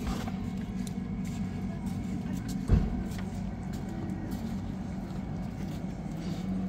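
A steady low hum of a running engine, with one thump a little under three seconds in.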